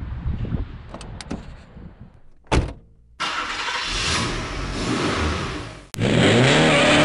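Car sound effects under a title sequence: a short whoosh, then a steady rush of car noise, and near the end a click followed by a car engine revving, its pitch rising.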